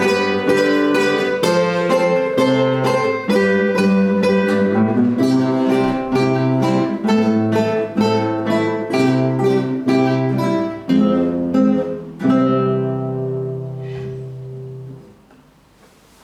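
A quartet of four guitars playing together: quick, repeated plucked notes over a moving bass line. About twelve seconds in they land on a final chord that rings for a few seconds, then dies away.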